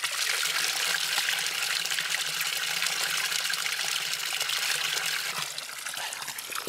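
Spring water gushing steadily from a pipe spout and splashing as a man drinks straight from the jet; a little after five seconds in the gushing eases as the stream falls back into the stone trough.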